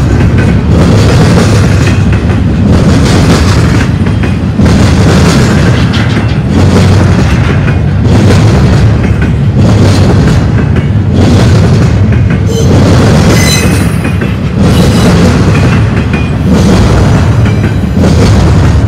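Double-stack container train's well cars rolling past close by: a loud, steady rumble of steel wheels on rail with repeated clacks as the trucks pass over the rail joints, and a brief high wheel squeal about two-thirds of the way through.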